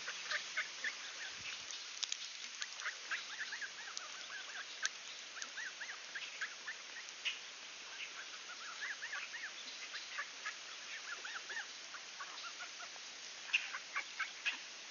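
Mallard ducks calling: many short, soft calls come on and off throughout, over a steady hiss.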